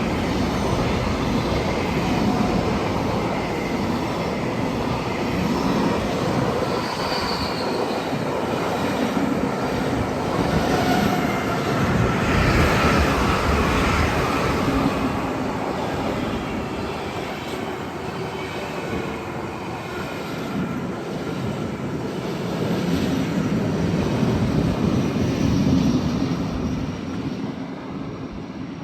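A train running on the rails: a dense, steady noise of wheels and running gear that swells twice, about twelve and twenty-five seconds in, then fades toward the end.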